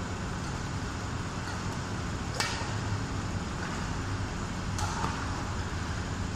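Two sharp strikes of a badminton racket on the shuttlecock, about two and a half seconds apart, over a steady background hum of the hall.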